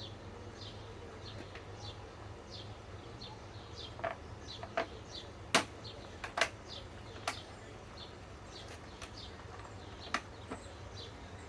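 A bird chirping over and over, a short high chirp roughly every half second, over a low steady hum. A handful of sharp clicks and knocks land in the middle, the loudest about five and a half seconds in.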